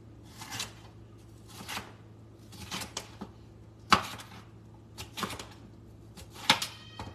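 Chef's knife slicing a bell pepper into long julienne strips on a cutting board, each cut ending in a knock of the blade on the board, about one cut a second. The sharpest knock comes about four seconds in.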